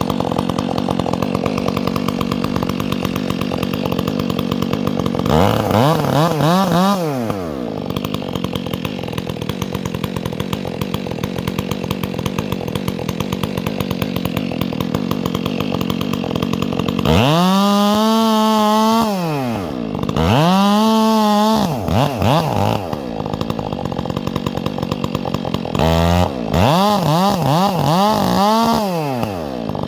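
Chainsaw running at idle, revved up and back down several times: once about six seconds in, twice in quick succession around the middle, and a run of short revs near the end.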